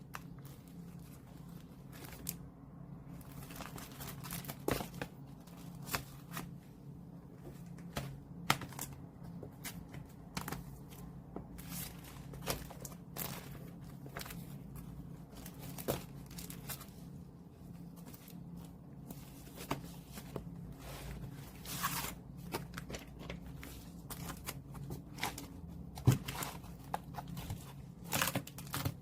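Album packaging being handled and unwrapped: repeated crinkling, rustling and tearing of wrapping, with scattered short taps and clicks, over a low steady hum.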